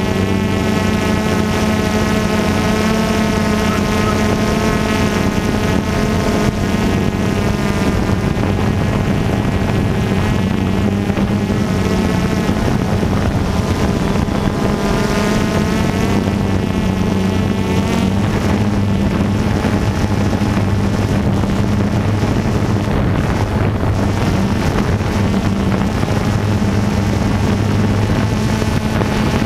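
DJI Phantom 2 quadcopter's four electric motors and propellers buzzing steadily, heard from the camera mounted on the drone itself, the pitch wavering as the motors change speed in flight.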